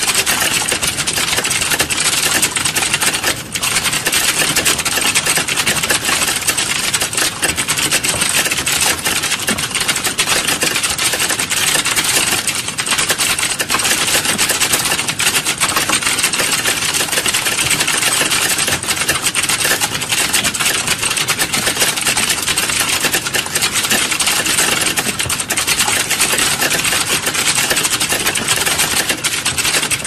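Fast, continuous typing on a computer keyboard: a dense, unbroken stream of key clicks, with a brief pause about three and a half seconds in.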